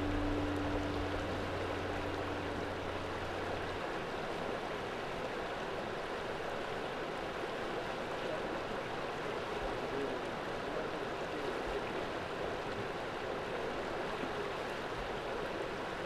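A stream flowing: steady water noise, with a held music note from the soundtrack dying away in the first four seconds.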